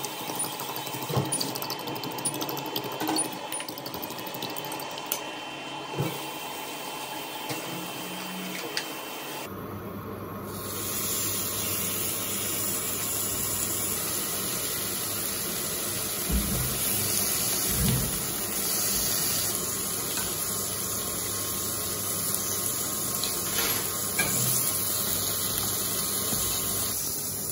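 A metal fork whisking eggs in a bowl, with light clicks against its side. About ten seconds in, bacon starts to sizzle steadily in a hot pan, with a few knocks from a wooden spatula.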